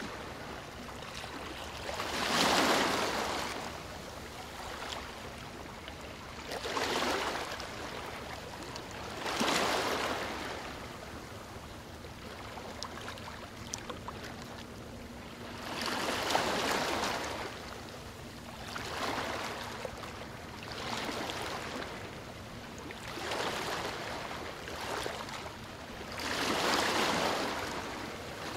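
Sea water lapping and sloshing right at the microphone, held just above the surface, in irregular swells every few seconds over a steady wash of moving water.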